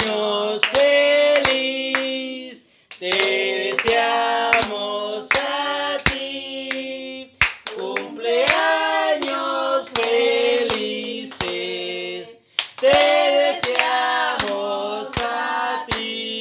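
Several voices singing a birthday song in four sung lines, with hand-clapping on a steady beat about every half second.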